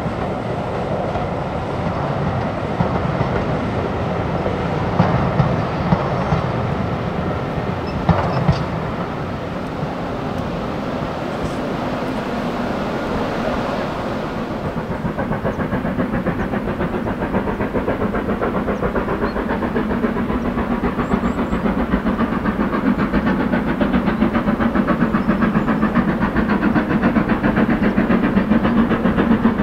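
Steam locomotive exhaust beats, fast and even, growing steadily louder over the second half as the engine approaches, working hard up a steep 1 in 49 gradient. Before that comes the rumble and wheel clatter of a train running past, with a few knocks.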